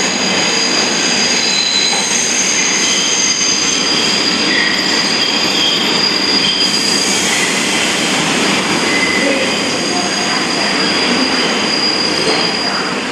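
New York City subway train pulling in on the track across the platform, its wheels squealing in several steady high tones over loud running noise; the loudest squeal fades out near the end.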